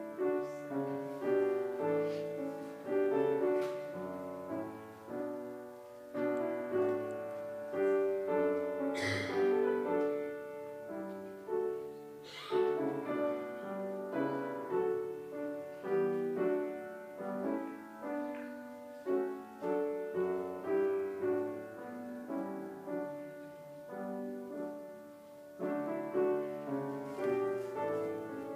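Piano playing offertory music: a slow piece of chords and melody.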